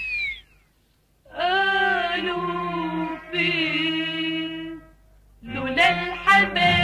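Background music: a short falling swoop, a brief pause, then two long held vocal notes, and a fuller section with a beat comes in about five and a half seconds in.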